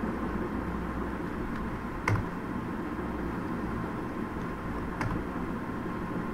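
Two sharp computer keyboard key presses, about three seconds apart, the first louder with a low thump. Under them runs a steady background hum and hiss.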